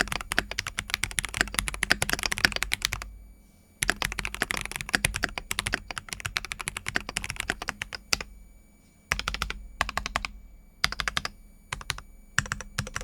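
Typing on a Keychron V6 full-size mechanical keyboard with Keychron K Pro Red linear switches: rapid keystrokes in a long run for the first three seconds and another for about four more, then shorter bursts with brief pauses between them.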